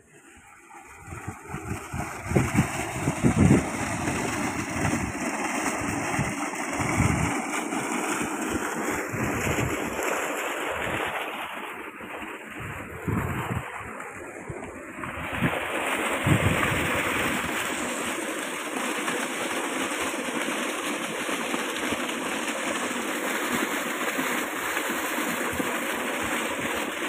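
Rushing, splashing water from an irrigation pump's outlet pipe pouring into a channel, a steady noise, with wind thumping on the microphone in gusts through the first half.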